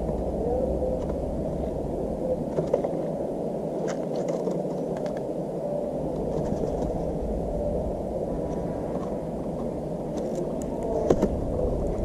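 Steady muffled outdoor rumble picked up by a GoPro action camera, with a few light clicks and taps and a sharper tap about eleven seconds in.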